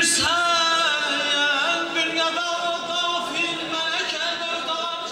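A man's voice singing an unaccompanied religious chant (mersiyye) through a microphone and loudspeaker, holding long notes that slide and bend.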